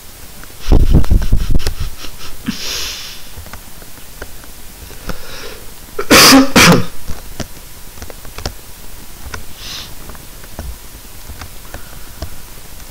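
A person close to the microphone coughs about a second in and sneezes loudly about six seconds in, over a steady background hiss.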